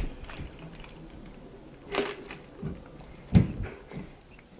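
Drinking through a straw from a paper fast-food cup: a few short sip and swallow sounds, close to the microphone, with quiet between them. The loudest, a deeper gulp, comes a little over three seconds in.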